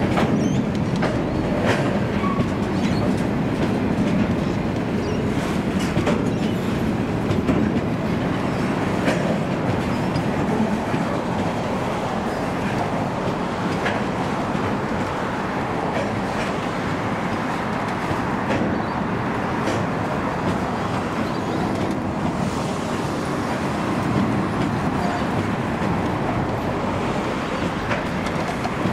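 Cement tank wagons of a freight train rolling steadily past, the wheels giving scattered sharp clicks over the rails.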